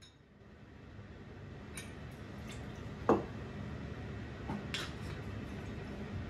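Vodka poured from a bottle into a metal jigger over stainless shaker tins, with light clinks of the bar tools being handled. A short sharp sound about three seconds in is the loudest moment.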